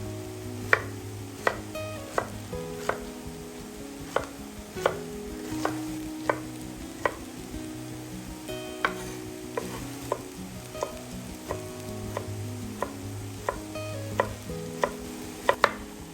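A utensil stirring food in a pan, with sharp clicks of the utensil striking the pan about once or twice a second and light frying underneath. Soft background music with held notes plays throughout.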